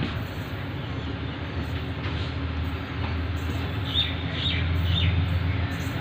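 Steady low rumble of a diesel-electric locomotive that grows louder from about halfway as the oncoming train approaches. A few short bird chirps sound about four seconds in.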